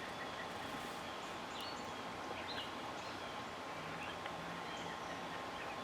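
Outdoor evening ambience: a steady hiss with a few short bird chirps scattered through it, and a faint steady high tone underneath.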